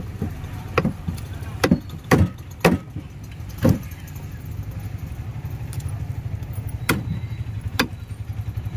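A heavy curved cleaver chopping catla fish on a wooden log block: about seven sharp chops, five of them in the first four seconds and two more near the end. A vehicle engine idles underneath with a low, rapidly pulsing hum.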